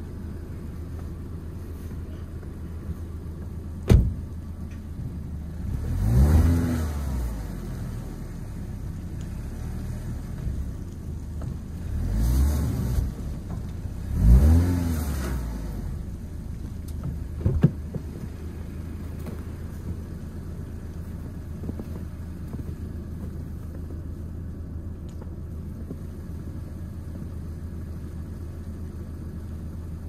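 A sedan's engine idling while stuck in deep snow. A car door shuts with a thud about four seconds in, then the engine is revved three times, rising and falling in pitch, as the wheels spin in the snow.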